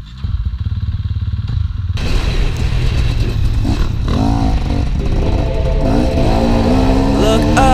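KTM 250 dirt bike engine running, first with a rapid even idle pulse, then from about two seconds in revving up and down as the bike is ridden and accelerated.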